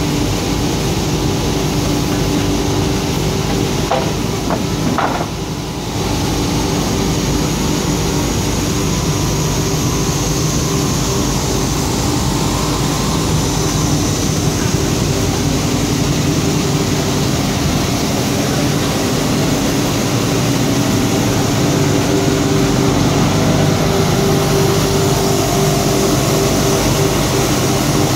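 Paper tube polishing machine running: a steady, loud hum of motors, sanding heads and dust-extraction blowers, with a few steady tones. The sound dips briefly about five seconds in.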